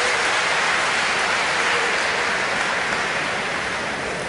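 Large audience applauding steadily, gradually dying away near the end.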